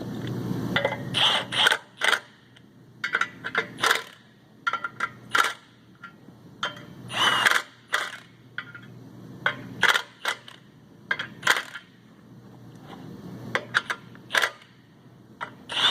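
Hand ratchet clicking in short, irregular bursts while the clutch pressure plate bolts are drawn down onto the flywheel, with metallic clinks of tools and parts.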